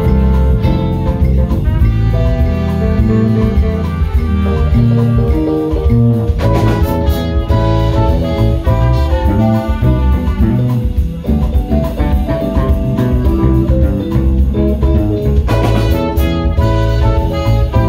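Live band playing an instrumental passage: violin and electric guitar over keyboard and a drum kit, loud and continuous with no singing.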